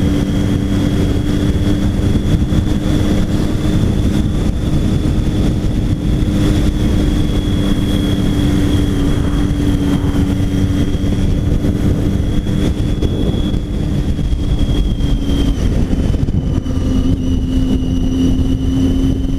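Triumph Tiger 800 XC's inline-three engine running at a steady cruise under heavy wind rush; the engine note drops slightly about three-quarters of the way through.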